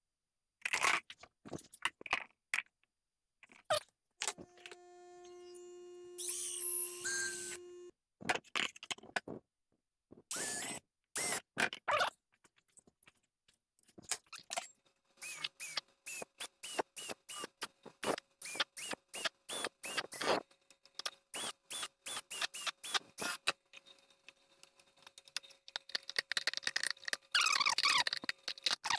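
A clear plastic food container being cut by hand: a utility knife scraping and scoring the plastic in short strokes, with a cordless drill running for a few seconds about five seconds in. Later comes a long run of quick, even clicks, about four a second, as the plastic is cut.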